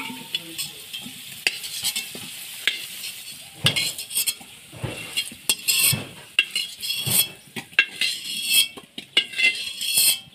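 Fried potato pieces sizzling in hot oil in a metal wok while a metal spatula scrapes the pan, then, from about a third of the way in, a quick run of clinks and knocks as the spatula strikes the wok and a steel bowl, lifting the potatoes out.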